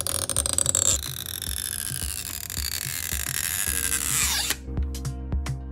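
Battery adhesive strip being pulled out from under an iPhone battery: rapid crackling at first, then a hissing squeal that falls in pitch and stops suddenly about four and a half seconds in. Background music with a steady beat plays underneath.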